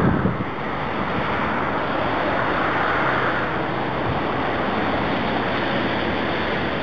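Jet airliner on final approach, a steady rushing noise of its engines building as it nears, with wind buffeting the microphone at the start.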